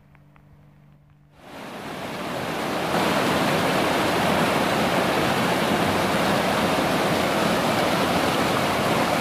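Mountain creek rushing and splashing over boulders and small cascades. It swells in about a second and a half in, then runs loud and steady.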